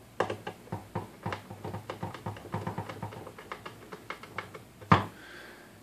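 Small parts being handled and fitted at the pitch fader board of a Technics SL-1200 turntable chassis: a quick run of small irregular clicks and taps. About a second before the end comes one sharp click that rings briefly.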